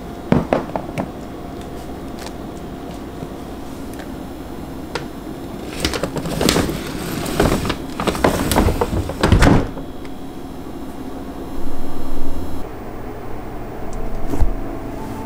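A few plastic clicks of an ice-pop mould being set down in the freezer, then the freezer being pushed shut with sliding, rubbing and knocking sounds and a final louder bump.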